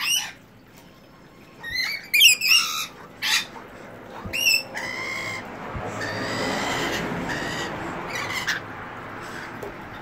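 Rainbow lorikeets giving short, shrill, falling screeches in clusters, loudest about two seconds in. A steady rustling hiss follows in the second half.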